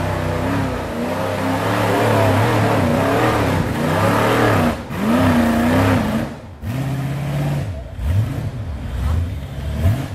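Rock crawler buggy's engine revving hard under load as it climbs a steep dirt hill, its pitch rising and falling over and over. It dips briefly twice near the middle, then gives a series of quick rising revs near the end.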